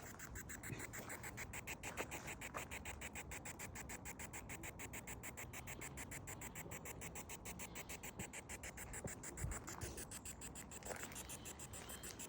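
Faint rapid chopping static from a spirit box sweeping through radio frequencies, about seven short pulses a second.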